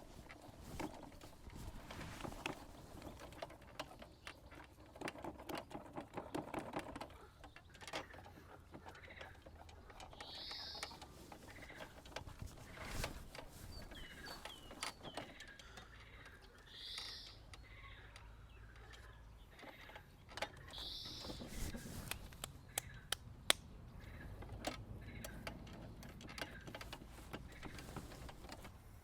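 Outdoor campfire cooking sounds: scattered clicks, knocks and crackles of the fire and of food and utensils being handled. A bird calls three times, short high calls several seconds apart.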